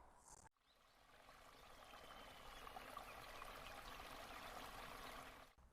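Faint, steady rush of fast-running river water, fading in about two seconds in.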